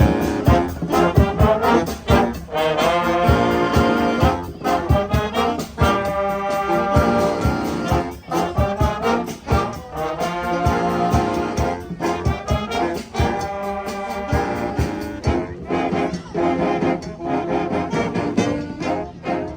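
Upbeat brass-led music with a steady beat, horn lines moving over it.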